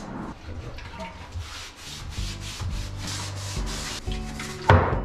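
Plywood panel being sanded by hand, a run of scratchy back-and-forth strokes about two to three a second, with a sharp knock near the end.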